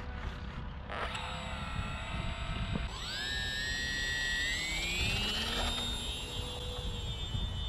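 Small brushless electric motor spinning the propeller of a foamboard RC model plane, throttled up for the takeoff run. The high whine starts about a second in, steps up much louder about three seconds in, and climbs in pitch before settling into a steady full-throttle whine as the plane lifts off.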